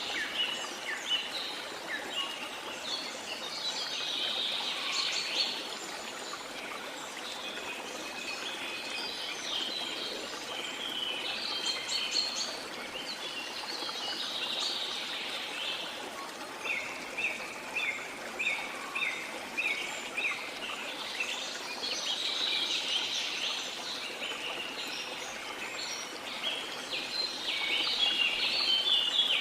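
Tropical forest birds chirping and calling over the steady rush of a waterfall. A little past halfway, one bird gives a run of short repeated notes, about three a second.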